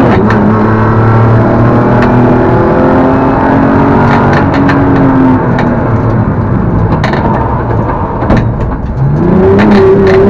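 Rally car's engine heard from inside the cabin, running hard at high revs, with sharp clicks and cracks over it. Near the end the revs drop and the engine goes quieter, then the pitch climbs again as the car accelerates.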